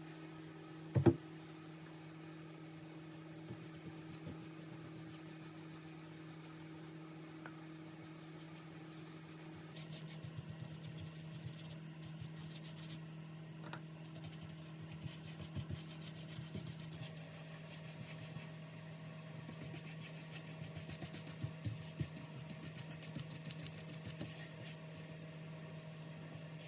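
Light rubbing and scratching of hand work on wood, with small clicks that grow busier after about ten seconds, over a steady low hum. A single sharp knock comes about a second in.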